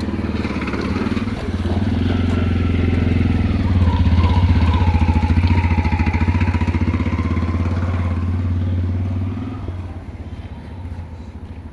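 Motorcycle engine running steadily while riding along a road, loudest mid-way, then easing off and quietening near the end.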